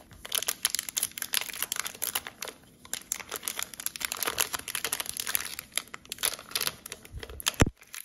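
Plastic wrapper of a sealed Upper Deck hockey card fat pack being torn open at the top by hand: dense crinkling and crackling, with one sharp snap near the end.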